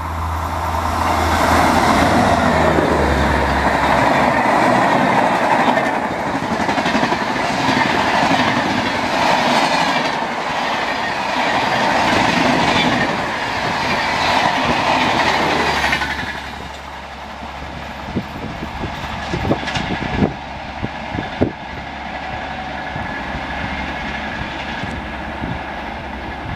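Shatabdi Express passenger train hauled by a WAP-7 electric locomotive passing at high speed: a loud rush of wheels and coaches with clickety-clack over the rail joints. About two-thirds of the way through the sound drops suddenly to a quieter low rumble with a few sharp clicks.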